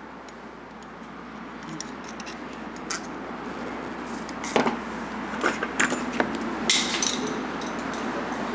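Small metal tools and parts clinking and tapping against a steel workbench. There are a few light clicks about halfway through, over a steady shop background hiss that slowly grows louder.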